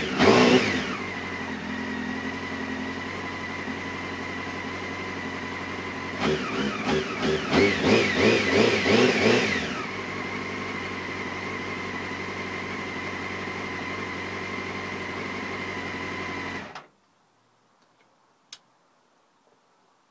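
Motorcycle engine, fresh from a top-end rebuild, running at a steady idle with a short throttle blip right at the start and a run of quick revs midway. It is then switched off and cuts out suddenly near the end, followed by one faint click.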